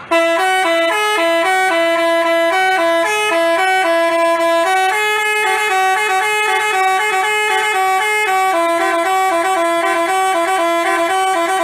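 Basuri telolet bus horn, a multi-trumpet musical air horn, playing a quick tune of short notes that step up and down. It starts suddenly and plays without a break until it cuts off at the end.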